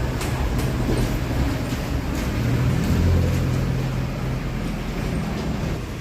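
A steady low machine hum under a hiss, swelling about halfway through and easing off again.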